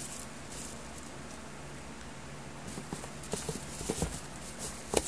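Handling of a cardboard shoebox and the wrapped shoe inside it: irregular knocks and taps starting a little after halfway, over a low steady room hum.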